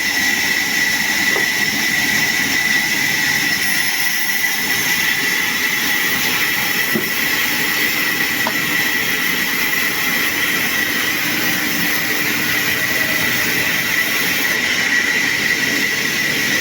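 Sawmill saw running steadily: a constant noisy drone with a steady high whine throughout.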